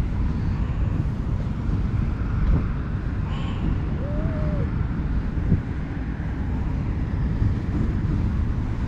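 Wind buffeting the camera microphone, a steady low rumble. About four seconds in, a cat gives one faint short meow that rises and falls.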